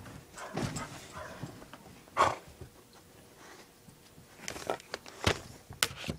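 Two dogs play-fighting on a bed: scuffling and rustling against the bedding, with scattered dog noises. The loudest is a short, sharp one about two seconds in, and a few knocks come near the end.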